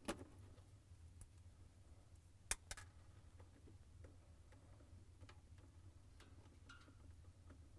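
Near silence broken by a few faint clicks of wire strippers biting into and pulling the insulation off thin appliance wires. The sharpest click comes about two and a half seconds in, with a second one right after.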